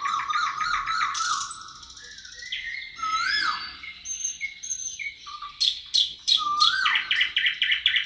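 Several birds singing at once, with fast chirping trills and repeated short notes. A whistled note rises and falls twice, a few seconds in and again near the end.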